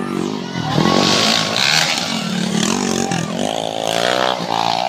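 Small motorcycle engine revving up and down in a race, its pitch rising and falling several times.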